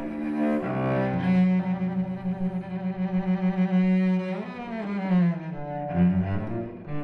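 Cello played with the bow: one long held note for about three seconds, then a slide up into a few shorter notes.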